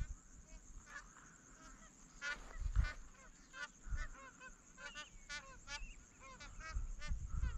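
A flock of magpie geese calling as it flies in, many short honks overlapping, growing busier after about two seconds. A few low thumps mix in, the loudest near the middle.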